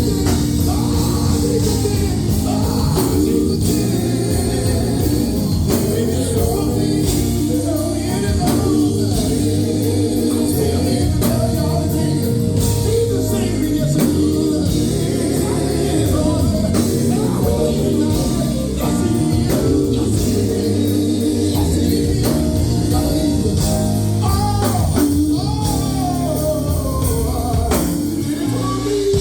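Live gospel band playing, with drums, bass and singing voices over a steady beat.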